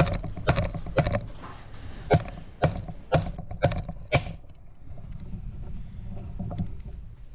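Hammer tapping a setting tool to drive a new detent sleeve into the fifth-gear bore of a ZF five-speed transmission case: sharp knocks about twice a second, stopping about four seconds in.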